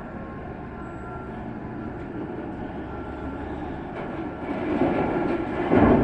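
P&H electric mining shovel at work: a steady machine hum, then from about four seconds in a louder rumbling clatter with knocks that grows toward the end, as iron ore is loaded into a dump truck's steel bed.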